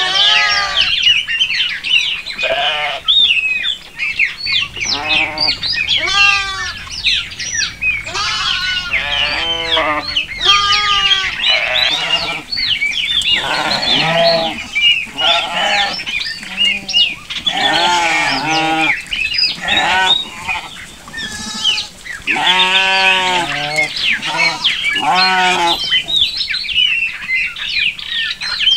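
A flock of green-winged macaws calling, many short harsh squawks overlapping, several a second.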